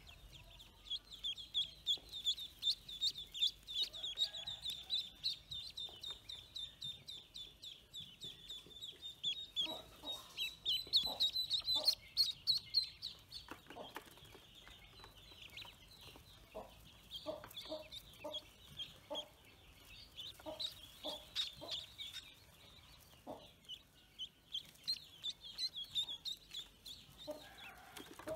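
A crowd of newly hatched ducklings peeping: a dense chorus of short, high-pitched peeps that swells about ten seconds in, then thins and picks up again. Scattered lower, shorter taps or calls come in among them through the middle.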